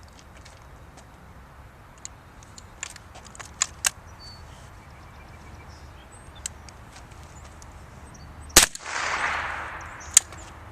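One .22 rifle shot from a single-shot break-action Rossi about eight and a half seconds in, followed by about a second of hiss. Before it come several small clicks of the action being handled between shots, and a sharp click sounds about a second and a half after the shot.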